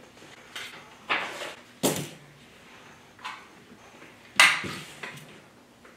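Handling noises on a table: about five separate knocks and rustles as a sheet of paper, scissors and a roll of tape are set down, the loudest a little past the middle.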